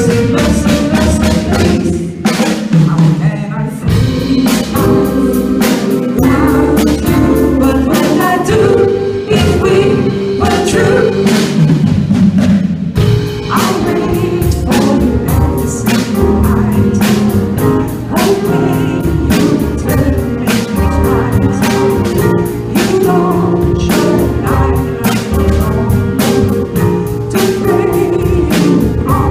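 A small live band playing: a drum kit keeping a steady beat under two electronic keyboards, with a voice singing over them.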